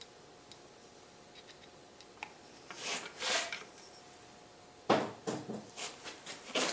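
Metal parts being handled and fitted on a motorcycle engine's crankcase: a rubbing, scraping noise around three seconds in, then a sharp metal clunk about five seconds in followed by several lighter clicks and taps.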